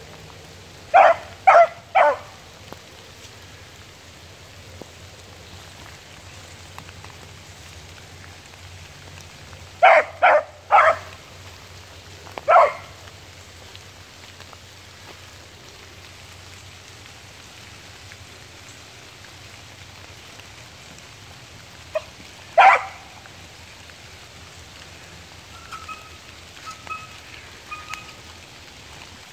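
Young beagle barking in short bursts while trailing a cottontail: three quick barks, then three more and a single one about ten seconds in, then a couple more past twenty seconds, giving tongue on the rabbit's scent. Steady rain patters on the leaves throughout.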